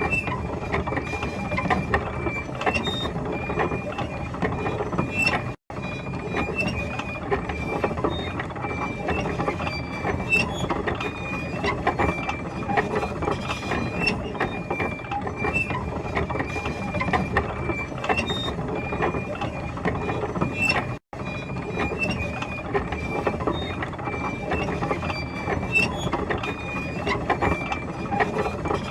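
Military tank on the move: a steady mechanical clatter of track links with many sharp clicks and short high squeaks over the running drive. The sound drops out for an instant twice.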